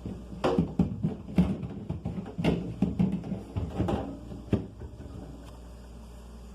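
A quick run of knocks and clatters of containers and fridge parts being handled and set down, for about four seconds, then only a steady low hum of the room.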